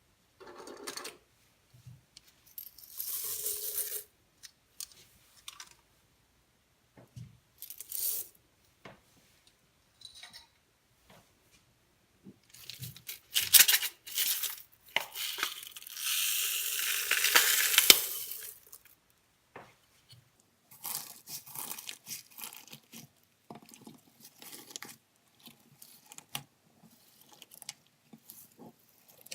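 Slime being squished and stretched by hand: irregular sticky crackling and squelching in short bursts, with the longest and loudest stretch about halfway through.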